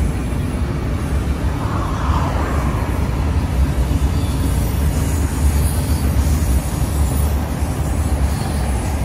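A BNSF freight train of enclosed autorack cars rolling past, a steady low rumble of wheels on rails.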